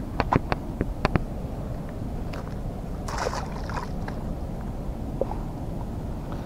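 A few sharp clicks in the first second, then a short splash about three seconds in as a hand-held fish is dropped into the pond water, over a low steady rumble.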